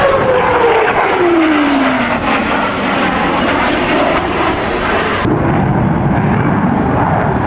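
F-15 Eagle fighter jet flying past, its engine whine falling in pitch over the first two seconds over a dense rushing jet noise. About five seconds in the noise turns abruptly deeper and duller.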